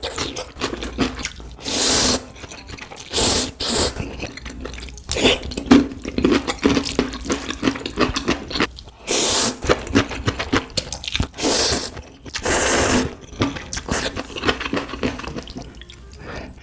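Close-miked noodle slurping, about half a dozen long wet slurps of a second or so each, with wet chewing and mouth clicks in between.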